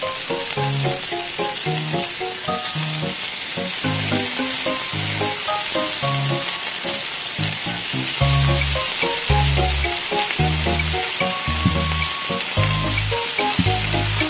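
Hot oil sizzling steadily as battered pieces deep-fry in a miniature steel wok, under background music with a plucked melody and a bass line that comes in about eight seconds in.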